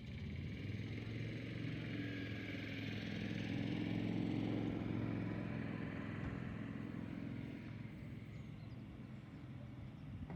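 An engine going past, its steady drone growing louder to a peak a little under halfway through and then fading away.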